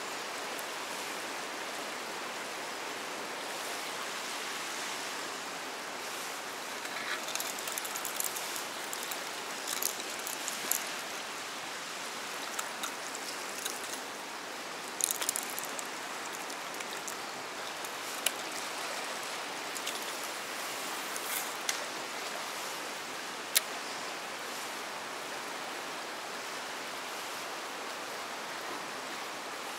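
Steady rush of fast-flowing river water over rock. From about seven seconds in, scattered rustles and short sharp clicks come over it, the sharpest a single click about three-quarters of the way through.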